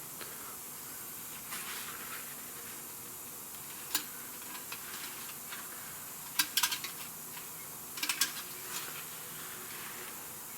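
A few light metallic clicks and clinks over a steady faint hiss: one about four seconds in, then two quick clusters around six and a half and eight seconds. This is the engine oil dipstick of a semi truck being pulled from and handled in its tube to check the oil level.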